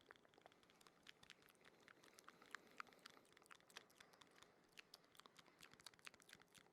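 ASMR wet mouth sounds close to the microphone: soft, irregular clicks and smacks, several a second.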